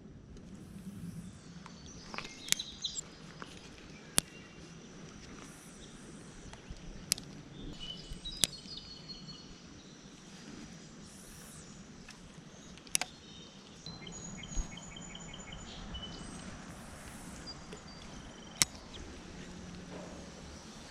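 Outdoor summer ambience of insects buzzing and birds chirping, with half a dozen sharp clicks or taps scattered through it that are louder than the rest.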